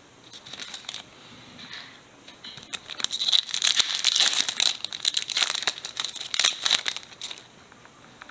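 Foil wrapper of a Pokémon trading card booster pack crinkling and tearing as it is opened by hand. A few light rustles come first, then a dense run of crackling crinkles lasts about four seconds.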